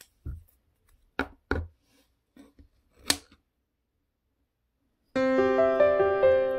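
Wooden disposable chopsticks being split apart and handled: a few short, sharp snaps and clicks with silence between them. Piano music starts about five seconds in.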